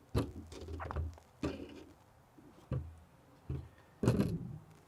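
An old wooden-framed glass window being turned over and handled on a work surface: a series of about five knocks and bumps with short rumbling scrapes, the loudest shortly before the end.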